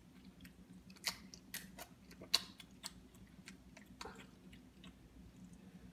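Mini pig smacking and sucking at the floor as it licks up the last drops of watermelon juice: scattered short wet mouth clicks over a faint steady hum.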